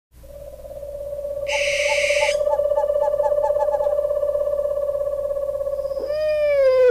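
A long, owl-like hoot held on one steady pitch for about six seconds, with a brief brighter sound on top about a second and a half in. It slides down in pitch near the end, where it is loudest. It is the voice of the cartoon owls, not a real owl's call.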